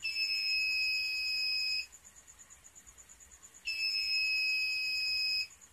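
Electronic test-equipment buzzer giving two long, steady, high-pitched beeps of about two seconds each, with a pause of about two seconds between them, as probes touch a TV backlight LED.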